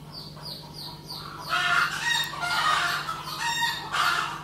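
Hens cackling and clucking loudly, the egg song of hens about to lay. A quick run of short high chirps comes in the first second, before the cackling starts.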